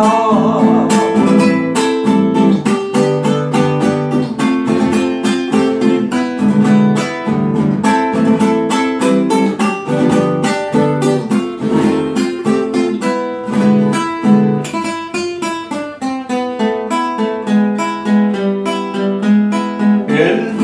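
Classical nylon-string acoustic guitar played solo in a fast rhythmic strum in the rasguido guapango style, with chords and notes changing as it goes: an instrumental break between sung verses.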